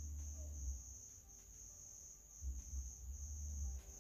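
A steady high-pitched trill throughout, under a low rumble that drops away about a second in and comes back about two and a half seconds in.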